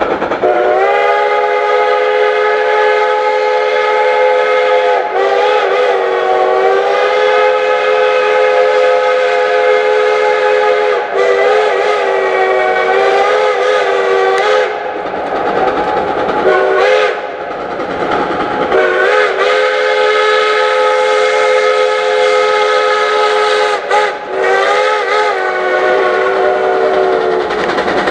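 Steam locomotive whistle sounding a several-note chord in a series of long blasts, with one short blast near the middle, wavering briefly in pitch as each blast starts and stops. Beneath it runs the steady noise of the geared steam locomotives working upgrade.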